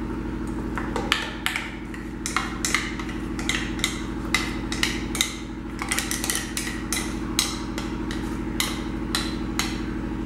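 A spoon knocking and scraping against the inside of a steel mixer-grinder jar to get the thick moong dal batter out: a steady run of short sharp taps, two or three a second, over a steady low hum.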